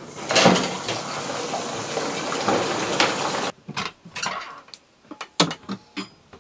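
Tap water running into a sink, with dishes knocking, which cuts off abruptly after about three and a half seconds. Then comes a scatter of short clinks and knocks as glasses are put away in a wooden cupboard.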